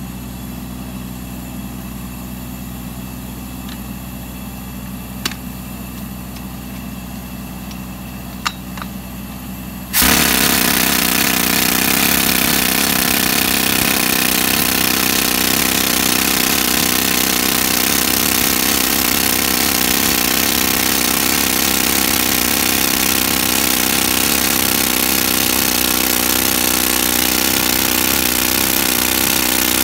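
Atlas Copco RH658 handheld pneumatic rock drill boring a 35 mm hole into rock, starting suddenly about a third of the way in and then running as a loud, steady hammering hiss. Before it starts, a steady low engine hum runs with two short clicks.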